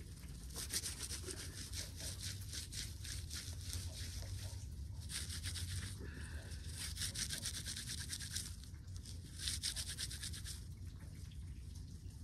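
Dry plant fibres being rubbed and worked between the hands to make cordage, a dry crackling rustle that comes in several bouts of one to four seconds, with a low steady hum underneath.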